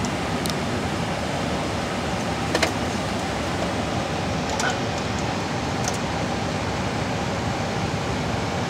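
Steady rush of air-conditioning airflow filling a Boeing 747-400 flight deck, with a few sharp clicks of cockpit switches; the loudest click comes about two and a half seconds in.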